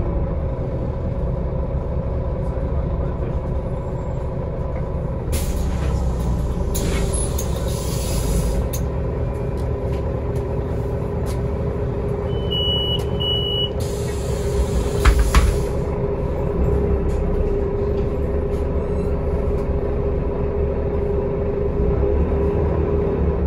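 Cabin of a Solaris Urbino 18 articulated city bus with its DAF MX11 diesel engine running steadily. About five seconds in comes a few seconds of compressed-air hiss. Around the middle there are two short beeps, typical of the door warning at a stop, and a couple of knocks follow a few seconds later.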